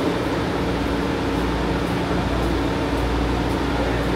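Steady mechanical drone of a metro station platform, with a low hum and a few faint steady tones, from standing trains and station ventilation.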